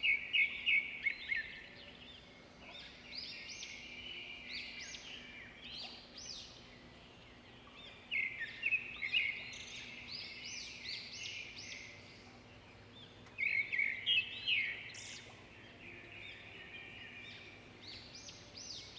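Birds chirping in bursts of quick, high chattering notes, with a faint steady low hum underneath.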